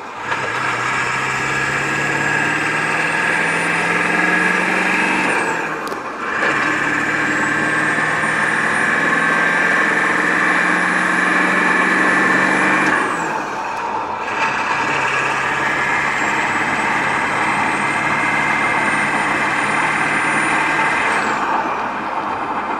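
Ford F-250 Powerstroke turbo diesel pulling under boost through the gears: the engine note and a high turbo whistle rise together in each gear, dropping briefly at gear changes about 6 and 14 seconds in, then easing off near the end.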